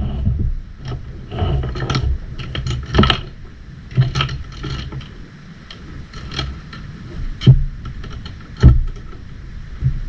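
Mini stepper being handled and set up: irregular clicks, rattles and knocks from its frame and resistance cords, with two heavy thumps in the second half, over a steady low rumble.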